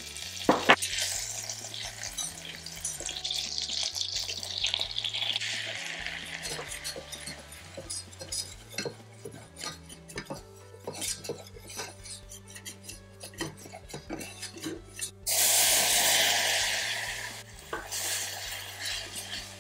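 Butter sizzling as it melts in a stainless steel saucepan, then a wire whisk clicking and scraping against the pan's sides as flour is stirred into it for a roux. About fifteen seconds in, milk pours into the pan with a loud rushing splash for a couple of seconds, then again briefly. Soft background music runs underneath.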